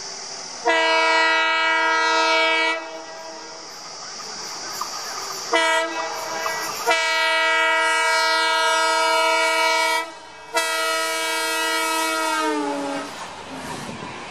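Indian Railways diesel locomotive's horn sounding four blasts: a two-second blast, a short toot, a long three-second blast, then another two-second blast whose pitch sags as it dies away. The locomotive's running rumble fills the gaps between blasts.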